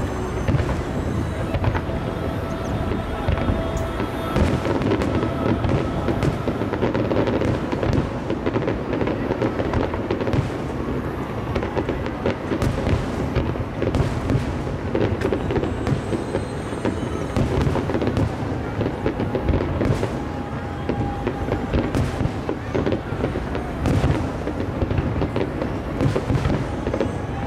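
Aerial fireworks display: shells bursting one after another in quick succession, a dense run of booms and bangs, with music playing underneath.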